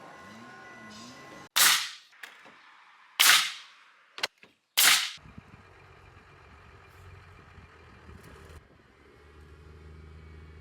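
Four sharp, loud cracks in about three and a half seconds, each fading quickly, over a low steady hum.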